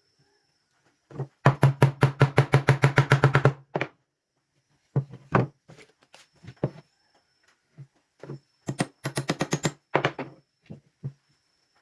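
Rapid knocking on wood during woodworking: two fast runs of sharp strikes, about nine a second, with scattered single knocks between them.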